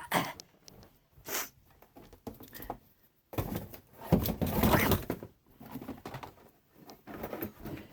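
Scattered knocks, clicks and rustling of things being handled and moved, with a longer stretch of rustling from about three and a half to five seconds in.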